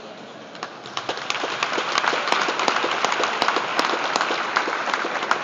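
Crowd applauding. The clapping picks up about half a second in, is fullest in the middle and thins out near the end.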